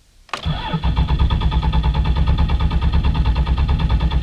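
Starter cranking a cold 1997 Dodge Ram's 5.9 Cummins inline-six diesel, a rhythmic pulsing that starts suddenly about a third of a second in and carries on without the engine catching. This is a no-throttle-pedal cold start on a very cold day.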